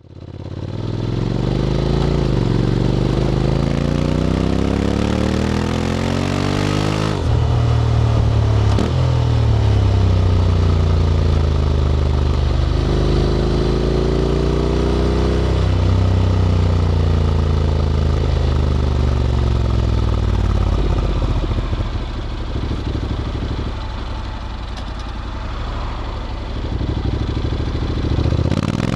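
Honda X-ADV 750's parallel-twin engine through an SC-Project titanium slip-on exhaust, accelerating through the gears. The revs climb, drop sharply at a gear change about seven seconds in and again a few times after, ease off for a few seconds past the twenty-second mark, and build again near the end.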